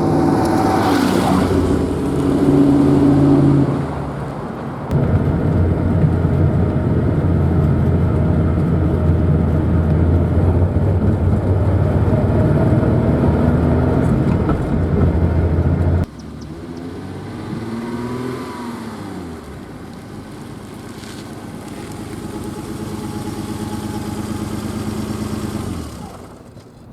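The 1986 BMW 325e's 2.7-litre straight-six engine running under way and pulling steadily. About two-thirds of the way through, the sound drops suddenly to a quieter stretch where the engine pitch rises and falls, then fades out at the end.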